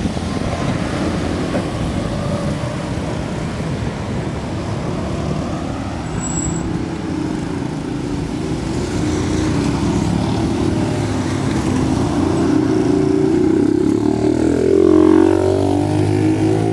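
Street traffic: a motor vehicle engine running close by, then a motorcycle passing close near the end, its engine note climbing as it goes by, the loudest sound.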